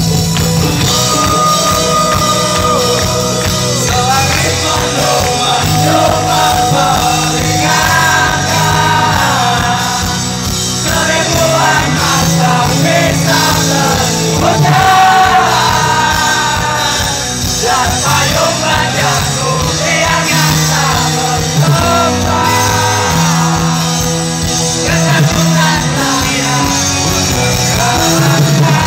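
Rock band playing live through a concert PA, a male singer's voice over electric guitars, keyboards, bass and drums, heard loud from within the audience.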